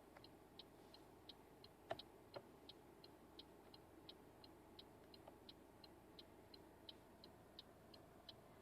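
Faint, steady ticking of a car's turn-signal indicator, about three to four clicks a second in an alternating tick-tock.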